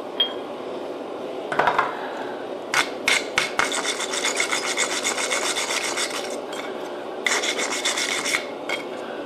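Hand wire brush scrubbing a glowing damascus billet on the anvil in quick back-and-forth strokes, in a long burst and then a shorter one. It clears forge scale to check where the forge weld has started to separate.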